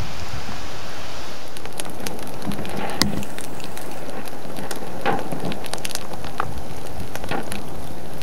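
Littoral steam explosions where lava meets seawater on a collapsing lava bench: a steady hiss with many sharp pops and crackles of bursting spatter, thickening about a second and a half in, with several louder cracks among them.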